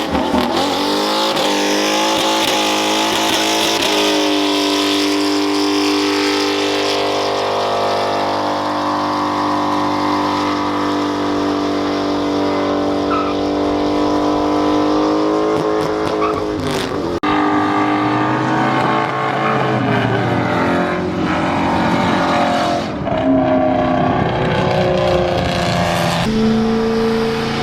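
Mustang engines revving hard, one held at steady high revs for several seconds over a hiss of tyre noise, then revs changing with some tyre squeal.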